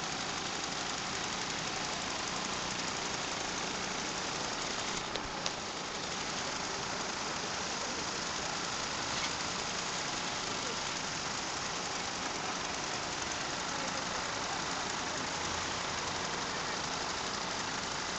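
Many VéloSoleX mopeds' small two-stroke engines running together in a steady drone as the group rides, with one short click about five seconds in.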